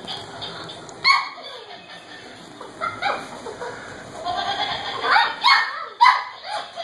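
Cavalier King Charles Spaniel puppies yipping and whining in play: a string of short calls that fall in pitch, coming thicker and louder from about four seconds in.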